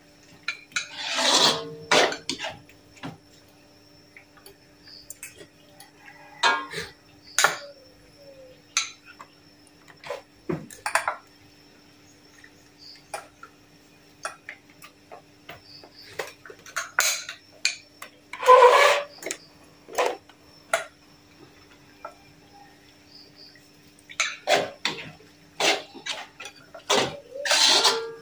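Metal spoon and fork clinking and scraping against a ceramic plate while eating fried noodles. The clicks are irregular, with a few longer, louder scrapes.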